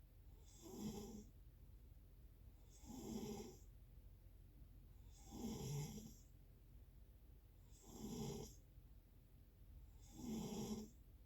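Snoring in a steady rhythm, one snore about every two and a half seconds, five in all, each lasting under a second.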